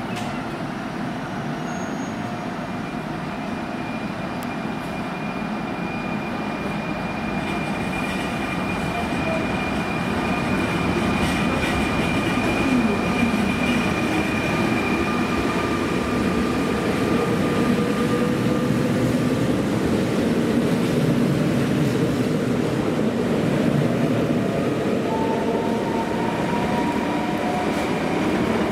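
Fertagus double-deck electric multiple unit pulling out and passing close by, its running noise growing louder over the first ten seconds or so. A thin high steady whine runs through the first half, and a motor whine rises in pitch as the train gathers speed.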